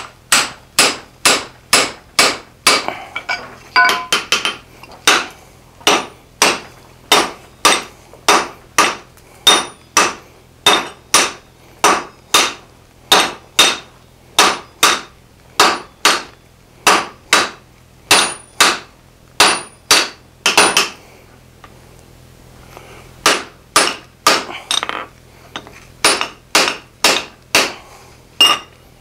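Team striking on an anvil: a hand hammer and a sledgehammer take turns hitting a red-hot steel hammer-head blank. The sharp, ringing blows come steadily at about two a second, with a brief pause about two-thirds of the way through.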